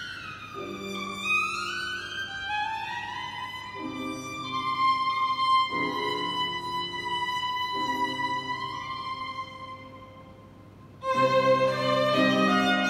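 Solo violin with upright piano accompaniment. The violin slides down and then climbs in a long glide to a held high note, while the piano gives a few short chords beneath it. The violin fades quietly, and about eleven seconds in both instruments come back in much louder.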